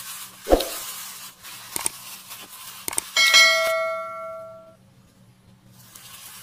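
Intro sound effects: hissing whooshes, a low thump about half a second in and a couple of clicks, then about three seconds in a bright bell ding that rings on for over a second, the notification chime of a subscribe-button animation.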